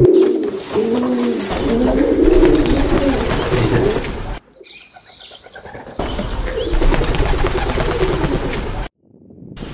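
Domestic pigeons cooing, a low wavering call repeated. It breaks off abruptly about halfway through and starts again a second and a half later.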